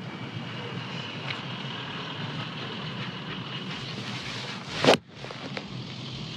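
A golf ball struck with a 7-iron off the tee about five seconds in: one sharp club-on-ball strike, the loudest sound, over a steady low rumble.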